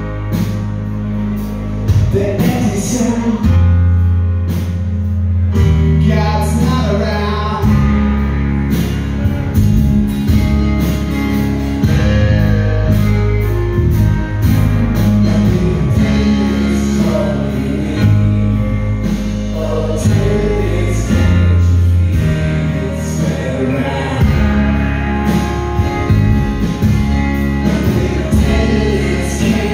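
Live band music through a PA: singing over acoustic guitar and keyboards, with held bass notes that change every couple of seconds.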